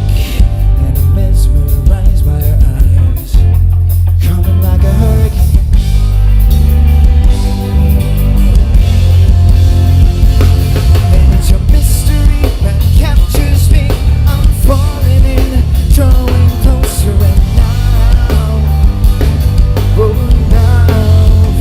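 Live rock band playing loudly, with drums, bass and electric guitar, in a passage without sung lyrics; wavering melodic lines come in over the second half.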